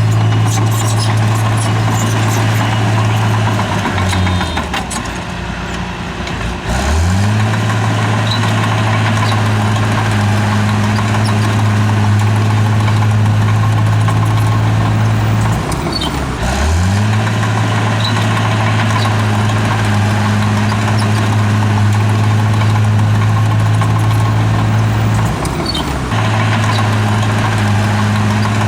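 Heavy diesel engine of a bulldozer running steadily at high revs, its pitch dropping and then climbing back about four seconds in, and dipping briefly again about halfway through and near the end.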